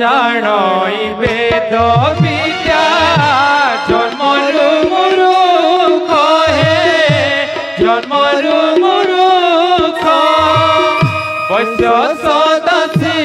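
Odia Ramlila theatre song: a singer holds a long, ornamented, wavering melody over drum beats and instrumental accompaniment.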